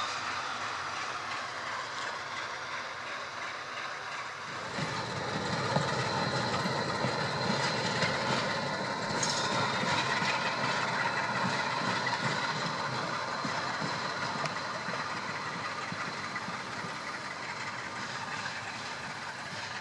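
Electroputere LDE2100 (060-DA) diesel locomotive's Sulzer engine running as the locomotive shunts slowly. A steady low engine rumble comes in about five seconds in. Before that there is only a thin high rail-yard hiss with a faint steady tone.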